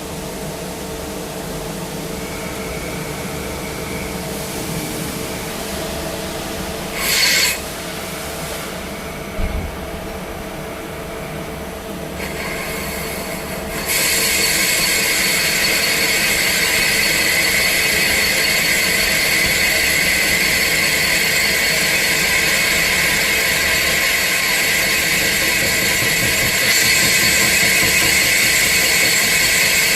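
CNC lathe running through an internal-diameter turning job: a steady machine hum with a short loud burst about seven seconds in. About halfway it gets much louder, a steady hiss with high ringing tones carrying on to the end.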